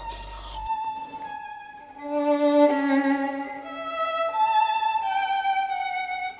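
Background music: a bowed violin melody over lower held notes, coming in under a second in. Before it, a short low hum cuts off abruptly.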